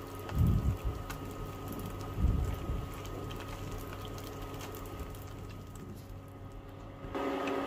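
Strips of vegan spare ribs deep-frying in plenty of oil, a steady crackling sizzle as chopsticks stir them. There are two dull knocks, about half a second and two seconds in.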